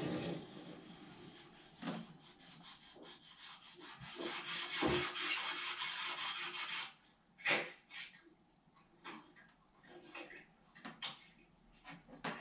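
Sandpaper rubbed back and forth by hand over a model workpiece in quick, even strokes for a few seconds, followed by scattered light knocks and taps.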